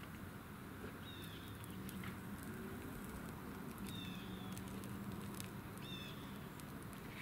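A bird giving short calls three times, over a steady low hum and faint scattered clicks.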